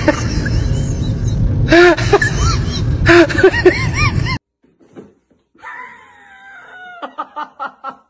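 Rooster squawking in alarm in short bursts of arched cries, with a plastic bag stuck on its foot, over a loud rough noise. The sound cuts off sharply about four seconds in; after a quiet gap a drawn-out falling voice and then laughter start near the end.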